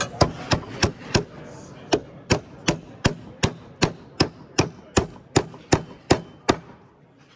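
Claw hammer driving a nail into a wooden board, about seventeen sharp strikes at nearly three a second with a short pause after the first few. The nail ends driven flush into the wood.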